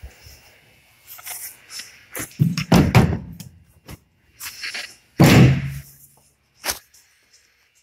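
Metal side door of an old Chevrolet van being worked by hand: a cluster of heavy thuds about two and a half seconds in, another loud door thud a couple of seconds later, then a sharp latch click.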